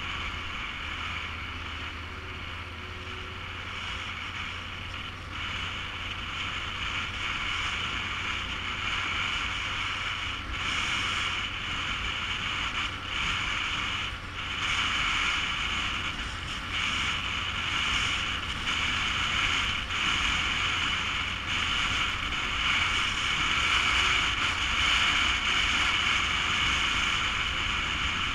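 Yamaha Super Ténéré's parallel-twin engine running at a steady cruising pace on a dirt track, with tyre and wind rush on the camera microphone; it grows a little louder in the second half.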